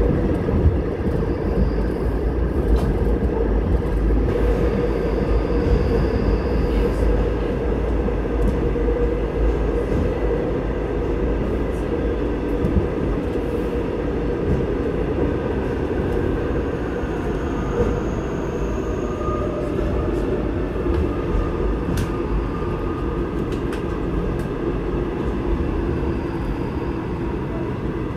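Seoul Subway Line 8 train running at speed through a tunnel, heard from inside the carriage: a steady loud rumble and rush with a few sharp clicks from the wheels on the track.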